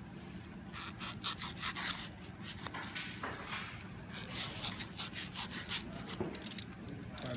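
Irregular short scraping and rubbing strokes from hands working on a surface, over a low steady hum.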